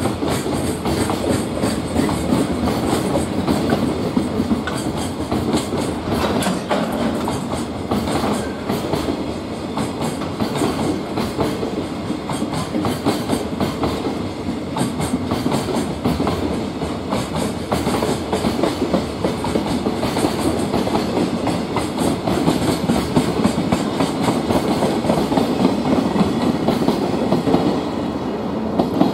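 Freight train's container flatcars rolling past at speed: a steady rumble of steel wheels on rail with a continuous run of clicks as the wheels cross rail joints.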